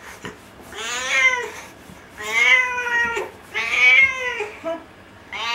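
Domestic cat meowing loudly: three long, drawn-out meows of about a second each, every one rising and then falling in pitch, with a fourth starting near the end.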